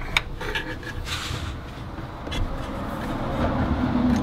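The Club Car DS engine's flywheel is turned by hand with a whirring rush that grows louder, after a click near the start. The turning checks whether the new ignition coil rubs on the flywheel.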